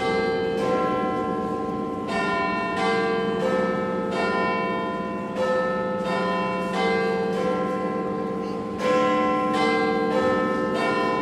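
Church bells pealing, struck one after another in an even sequence about every 0.7 seconds, each note ringing on over a low sustained hum.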